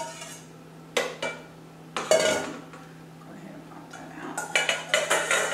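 Metal utensil knocking and scraping against a stainless steel mixing bowl as cooked spinach and kale are knocked out into a food processor, with the bowl set down on a stone counter: a few separate sharp metallic knocks, one ringing briefly, then a busier run of clinks near the end.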